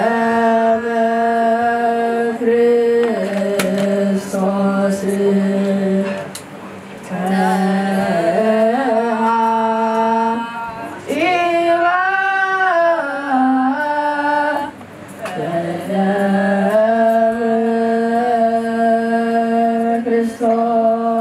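Choir singing an Ethiopian Orthodox mezmur (hymn) in long held notes. The phrases last a few seconds each, with brief breaks between them. About halfway through, the melody turns into a wavering, ornamented run before returning to held notes.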